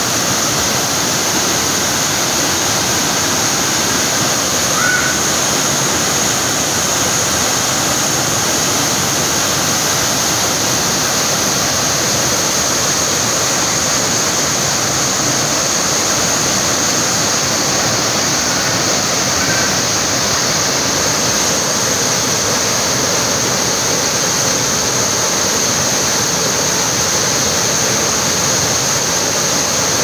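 Waterfall pouring down a rock face into a pool: a steady, unbroken rush of falling and splashing water.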